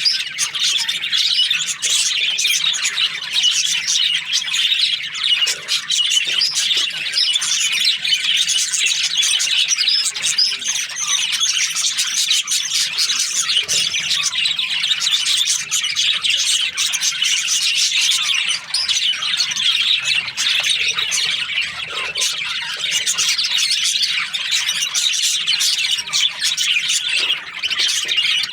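A flock of budgerigars chattering and chirping continuously, many birds calling over one another with squawks mixed in.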